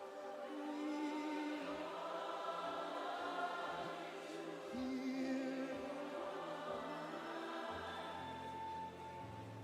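Gospel worship music with a choir singing long held notes.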